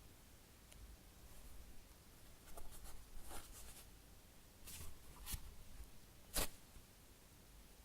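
Fingers squeezing and tapping a soft, very slow-rising foam squishy toy shaped like a cheesecake, its top surface sticky. The sound is scattered soft clicks and light rustles, with the sharpest tap about six seconds in.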